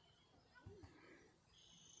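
Near silence: faint outdoor ambience, with a faint high steady tone coming in near the end.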